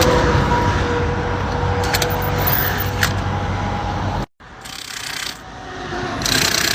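Highway traffic going by close at hand: a steady rumble of passing vehicles with a faint whine, which cuts off abruptly about four seconds in, followed by quieter short rushes of passing cars.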